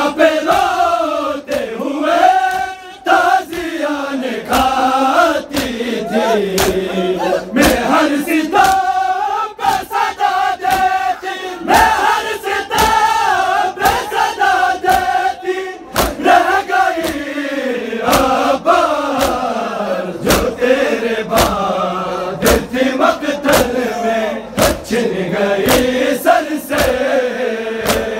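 A group of men chanting a Muharram noha in Urdu as a lament, with a large crowd joining in, over a steady beat of sharp slaps from bare-chested mourners beating their chests (matam), about one to two blows a second.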